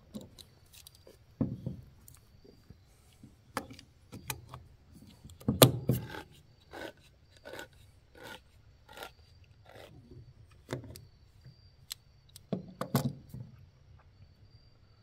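Handheld manual can opener cutting around the lid of a steel food can, the crank turned in steps with a short click or scrape about every two-thirds of a second. A few louder knocks come as the can and opener are handled.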